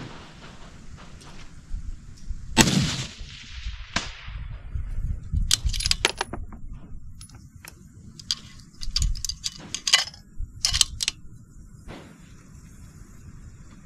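A rifle shot about two and a half seconds in, its report trailing off in a long echo, followed by a second, quieter crack. After that come several short clusters of sharp metallic clicks and clinks.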